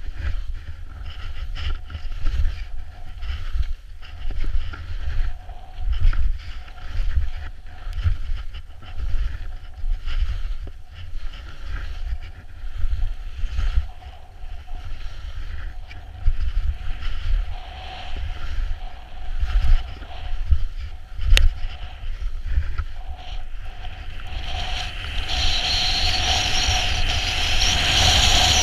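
Wind buffeting an action camera's microphone while skiing downhill, over the hiss and scrape of skis sliding and carving on packed snow; the snow hiss gets louder near the end as the skier speeds up.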